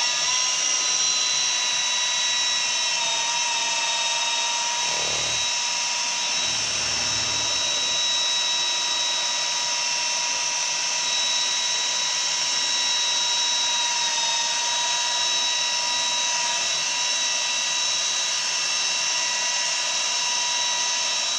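Cordless drill with a paddle stirrer running hard at a steady high whine, stirring thick, jelly-like heather honey in a bucket to break up its gel lumps before straining.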